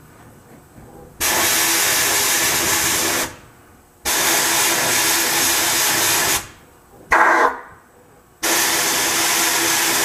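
Sandblast cabinet gun blasting media at a small part in three bursts of about two seconds each, with a short blast in between.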